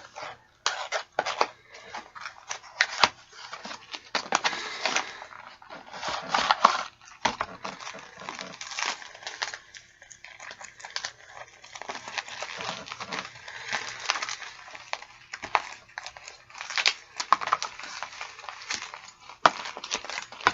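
Packaging being handled and unwrapped: irregular crinkling and tearing.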